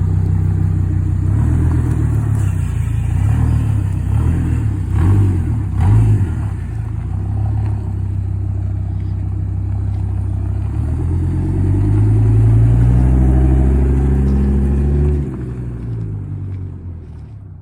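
Loud car engine running, its pitch rising and falling a few times early on. The pitch then climbs steadily as the car pulls away, and the sound drops off sharply about fifteen seconds in.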